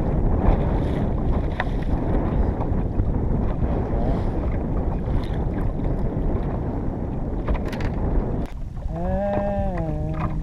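Boat under way: a dense low rumble with wind buffeting the microphone, which drops off abruptly about eight seconds in. A short drawn-out voice sound follows near the end.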